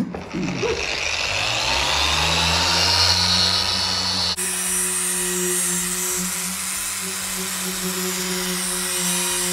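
Machine polisher running on car paint: the motor speeds up over the first couple of seconds, then holds a steady pitch while it works the paintwork.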